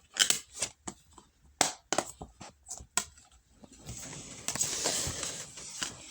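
A quick run of sharp clicks and knocks, then, from about four seconds in, a steady hiss.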